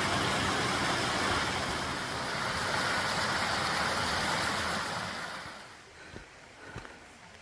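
Rushing water of a mountain stream, a steady hiss that fades away about five and a half seconds in, leaving only a few faint clicks.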